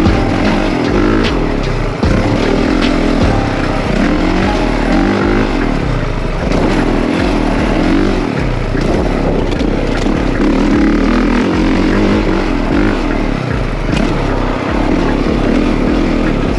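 Dirt bike engine running and revving up and down, its pitch rising and falling repeatedly.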